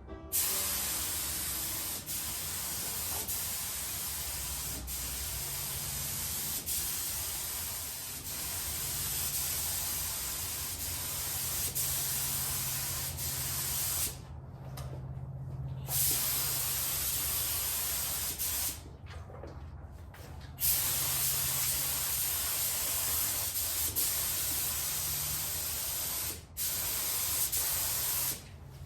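Paint spray gun spraying clear coat: a steady hiss that stops for a second or two about halfway through, again a few seconds later, and briefly twice near the end.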